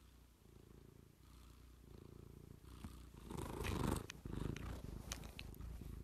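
Domestic cat purring steadily, growing louder as the microphone comes right up against its fur. From about halfway there is scratchy rubbing of fur on the microphone and a few sharp clicks.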